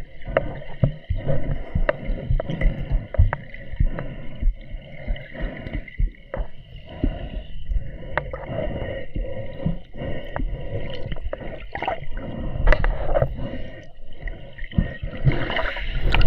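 Water sloshing and gurgling close to the microphone, muffled, with many small irregular knocks and clicks.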